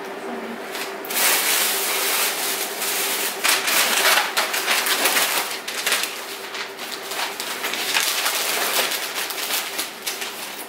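Paper gift wrapping and packaging crinkling and rustling as a present is unwrapped, starting about a second in and going on in uneven handfuls.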